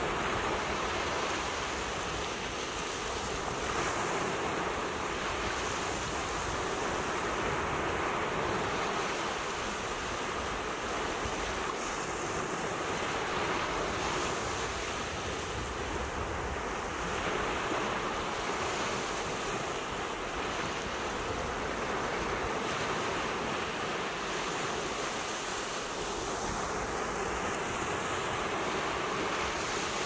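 Ocean surf: waves breaking and washing up the shore in a steady rush that swells gently and eases.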